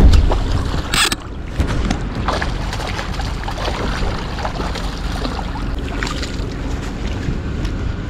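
Wind buffeting the microphone over the sound of open water, with a heavy low rumble at the start and a short burst of noise about a second in.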